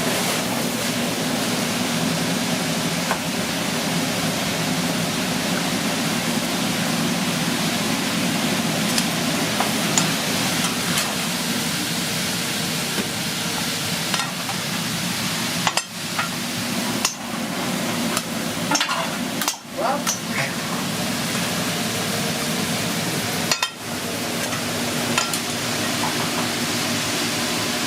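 Steak sizzling as it fries, a steady crackling hiss, with a few light clicks from utensils.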